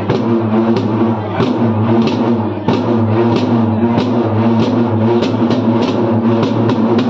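Music with a quick, steady drumbeat, about three strikes a second, over sustained pitched tones.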